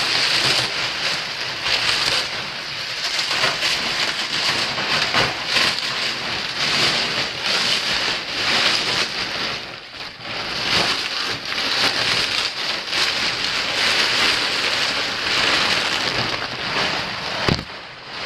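Thick plastic mattress wrapping crinkling and rustling in irregular bursts as hands tear and pull it off a rolled, compressed foam mattress. There is one sharp knock near the end.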